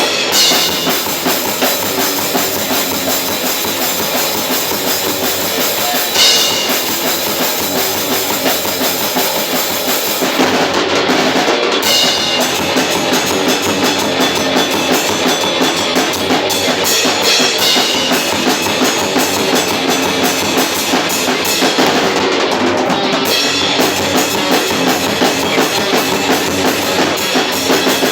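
Experimental metal band playing live at rehearsal: a full drum kit with bass drum and cymbals driving steadily under guitar, loud and unbroken.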